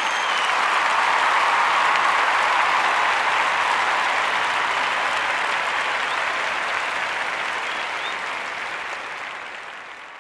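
A crowd applauding and cheering, a dense, steady clapping that swells in and fades out near the end, with a few short high whistles over it.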